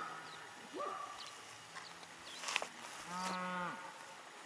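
Beef cattle mooing in a pasture: a short rising call about a second in and a longer, steady moo about three seconds in. A brief sharp click falls between them.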